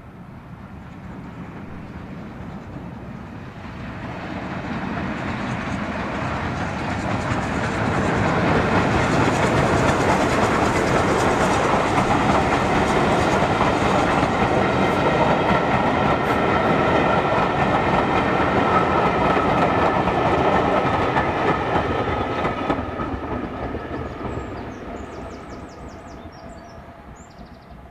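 Steam-hauled passenger train, a BR Standard Class 9F locomotive and its coaches, running past on the rails. It grows louder over the first several seconds, stays loud while the coaches go by, then fades away over the last few seconds.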